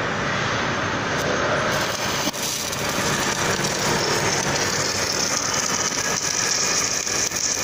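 Automatic longitudinal seam welding machine at work at the seam: a steady, loud hiss, with a higher-pitched hiss growing from about three seconds in.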